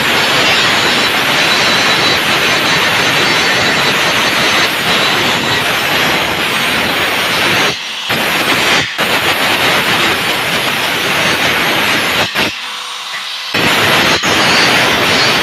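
Handheld electric angle grinder grinding steel, a continuous harsh grinding noise. It eases off briefly twice a little past halfway, and for about a second later on the disc comes off the metal before biting again.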